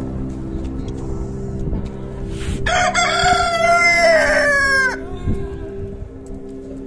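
Rooster crowing once, a single long cock-a-doodle-doo starting a little under three seconds in and lasting about two seconds, its pitch sliding down at the end.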